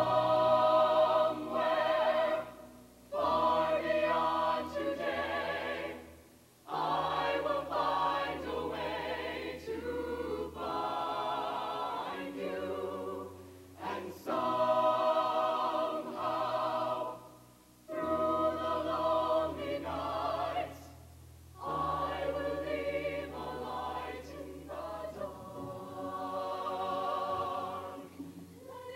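Mixed show choir singing in full harmony, in phrases broken by brief pauses every few seconds, with sustained low notes underneath.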